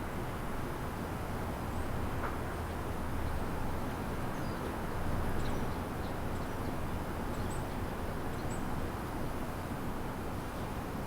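Steady low rumble of city traffic, with faint, short bird chirps scattered through the middle of the stretch.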